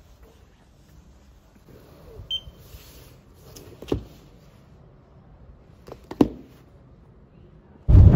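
Quiet library room tone with a short high electronic beep, then two sharp knocks as a book is set down and handled on a self-service checkout station. About a second before the end it cuts abruptly to loud, steady road and engine noise inside a moving car's cabin.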